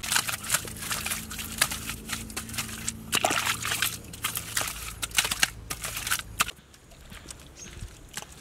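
Wet mud being scooped and scraped by hand inside a dug hole: a quick, irregular run of wet slaps and scrapes that stops about six and a half seconds in.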